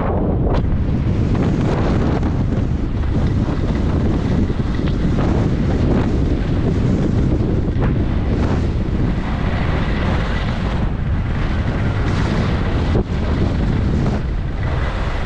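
Wind buffeting the camera's microphone at skiing speed, a loud, steady rush, with the hiss and scrape of skis carving over packed groomed snow.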